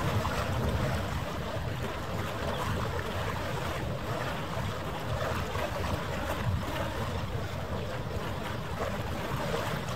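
Steady rushing noise of wind on the microphone over harbour water, with a low rumble underneath and no distinct events.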